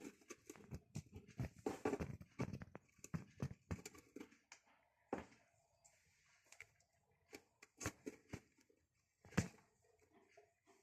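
Budgies making irregular small clicks, taps and scratchy rustles, like pecking, chewing and shuffling about, with a few sharper ticks, one of the loudest about nine seconds in.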